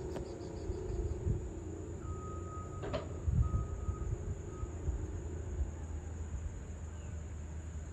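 Outdoor ambience: a low steady drone that fades out about two-thirds of the way in. A thin, broken whistle sounds near the middle, and there is one sharp click about three seconds in.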